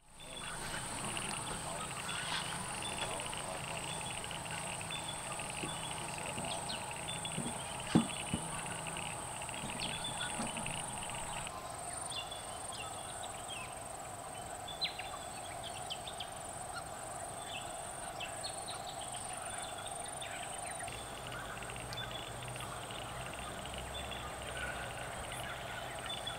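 Open bushland ambience: scattered short bird calls repeating over a steady high-pitched hiss, with a couple of brief soft clicks.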